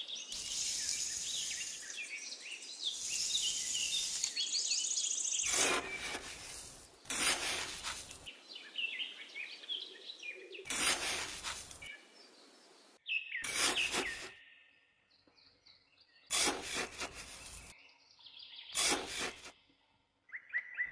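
A small hand trowel scraping and cutting into damp sand in about six short strokes, a second or two apart. Birds chirp throughout, most in the first few seconds.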